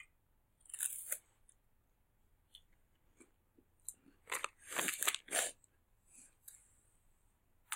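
Crunching and chewing on a crisp Knoppers hazelnut wafer: a short crunch about a second in, then a denser spell of crackly crunches around the middle, with a few faint clicks.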